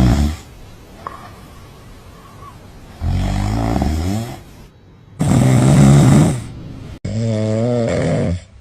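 Dogs snoring loudly: three long snores of about a second and a half each, with quieter breathing between them. The last snore wavers in pitch.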